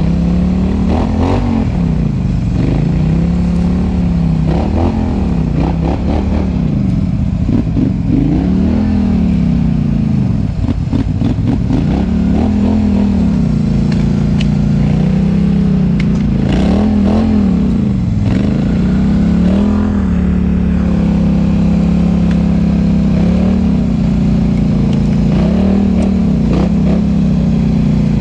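Can-Am ATV's Rotax V-twin engine revving up and dropping back over and over, in short throttle bursts about every two seconds, as the ATV is ridden over rough ground.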